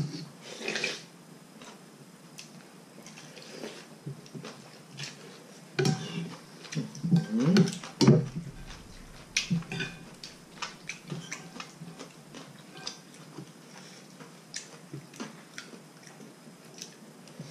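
A person eating noodle soup: noodles and broth slurped loudly at the start and again in a longer, louder stretch about six to eight seconds in, with chewing and small clicks of chopsticks and a spoon against a ceramic bowl in between.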